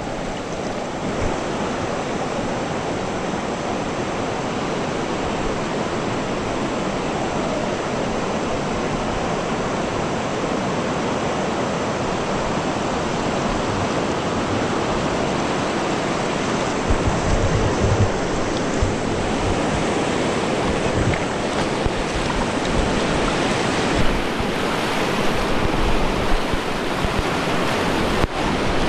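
Steady rush of river water around the raft. In the second half, occasional low bumps of wind buffeting the microphone.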